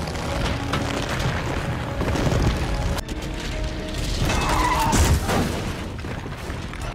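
Action-film soundtrack: music with deep booms and crashing over it, a dense, steady rumble throughout.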